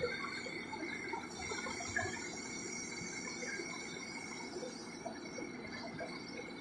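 Large mining excavator working: a steady mechanical noise with a thin, high, steady whine running through it and scattered small knocks.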